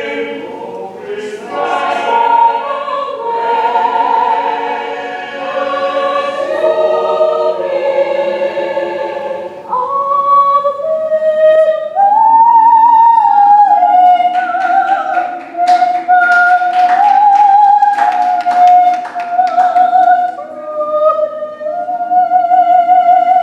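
A choir singing in harmony. About ten seconds in, a single high voice takes the lead with long, wavering held notes over the other voices.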